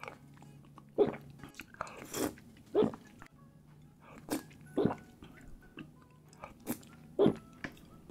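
Someone eating instant laksa noodles close to the microphone: about seven short, loud slurps and chewing sounds, roughly a second apart, over a faint steady background.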